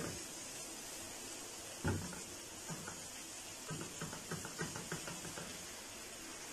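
Silicone spatula knocking and scraping against a nonstick frying pan as a thick semolina mixture is stirred and cooked: one firm knock about two seconds in, then a quick run of light taps a couple of seconds later.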